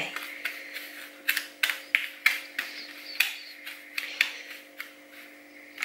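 A metal spoon scraping and clicking against a plate as it stirs dry breading of breadcrumbs, grated parmesan, parsley and paprika: short irregular scrapes, about two to three a second, thinning out near the end, over a steady low hum.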